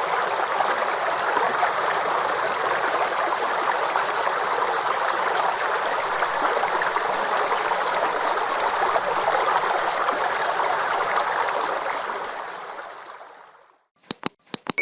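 Water stream flowing with a steady rushing, bubbling sound, fading out about two seconds before the end. A few quick sharp clicks follow near the end.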